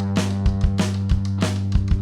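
Rock song playing: a sustained guitar note comes in at the start and holds over steady drum beats.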